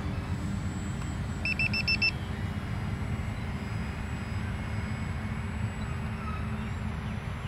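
A row of five quick, high electronic beeps about a second and a half in, over a steady low outdoor rumble with a faint steady hum.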